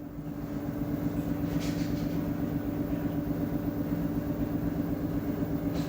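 LG 10 kg front-load washing machine running with its drum shaking hard: a steady hum with a fast, even pulsing underneath, building a little in the first second. The owner takes the noise for a motor problem.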